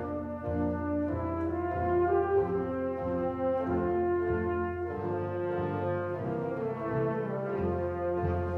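Instrumental background music of held chords that move to a new chord every second or so, at a steady level.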